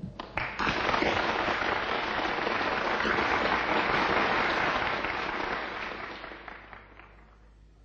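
Audience applauding: a few separate claps at first, quickly building to full applause that holds and then dies away near the end.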